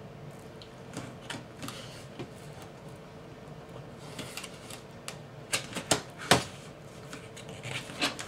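Cardboard and plastic retail packaging being handled and slid apart: scattered light taps and rustles, with a few sharper clicks a little past halfway.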